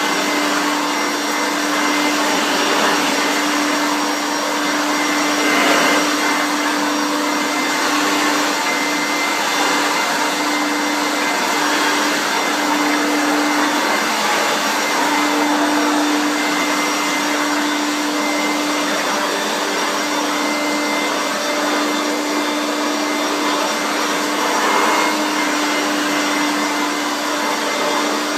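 Hoover Turbomaster U5094 vacuum cleaner running steadily: an even motor hum with a constant pitch under a rush of air, swelling slightly now and then.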